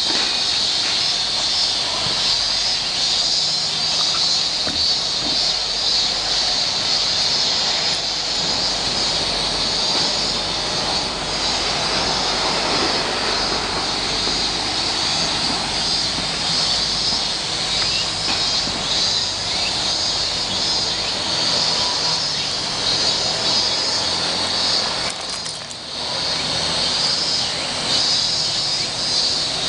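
Cicadas singing in a dense, steady chorus. A broad rushing noise swells and fades under it in the middle, and the chorus dips briefly near the end.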